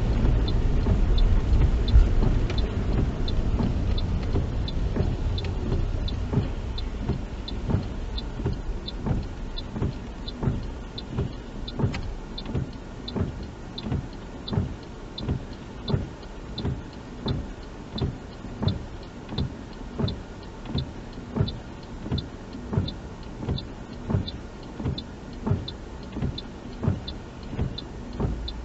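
Car interior: road noise fades as the car slows and stops. Then a steady ticking sets in, about three ticks every two seconds, typical of a car's turn indicator left on.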